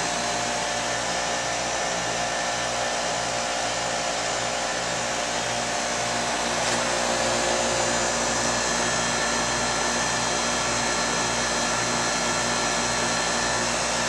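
Lennox 4-ton condensing unit running steadily: the condenser fan blows air over the hum of its scroll compressor.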